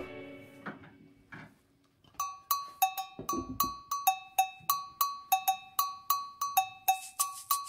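Background music: a salsa track ends and its last notes fade away. After a short gap, a fast, even percussion pattern starts, made of sharp metallic strikes alternating between two pitches like a cowbell, about three or four a second.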